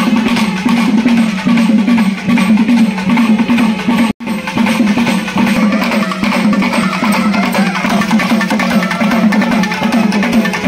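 Procession drummers beating double-headed barrel drums in a rapid, steady rhythm. The sound cuts out for an instant about four seconds in.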